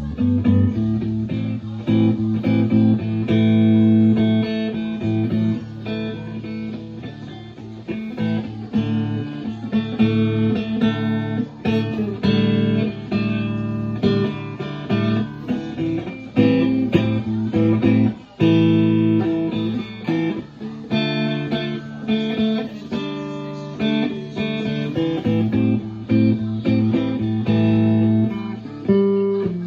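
Electric Telecaster guitar in an open tuning being played: picked melody notes over low open strings left ringing.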